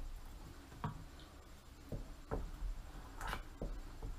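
A spoon stirring thick potato soup in a stainless-steel pot, with a handful of light, irregular taps and scrapes where it touches the pot.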